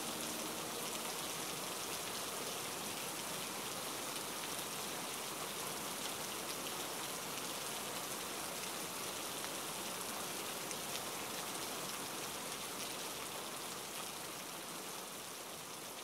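Steady rain falling on conifer forest foliage, an even hiss with no separate drops standing out, growing slightly quieter near the end.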